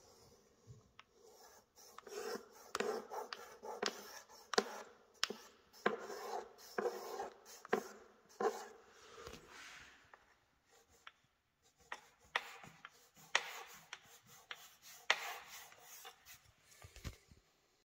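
A wooden strip scraping and rubbing along the tile-to-worktop joint in short strokes, a few a second, pausing briefly about ten seconds in.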